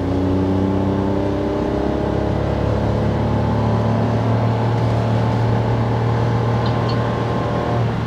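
Hyundai Casper's 1.0-litre naturally aspirated three-cylinder engine pulling near full throttle up a hill, heard from inside the cabin. Its drone is steady, with a pitch that rises slowly as the car gains speed.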